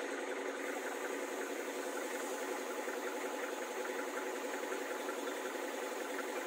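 A vehicle engine idling steadily, with a fast even rumble of firing pulses.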